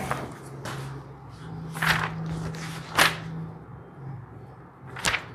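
Paper handling: a sheaf of printed pages being picked up and leafed through, heard as about four short, sharp rustles spaced a second or so apart, over a low steady hum.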